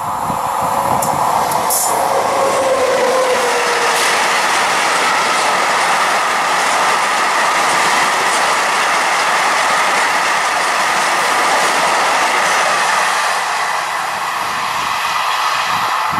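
A freight train of empty intermodal flat wagons passing at speed: a steady rolling rumble with wheel clatter over the rail joints. A tone falls in pitch about three seconds in as the locomotive goes by, and the rumble eases a little near the end as the train draws away.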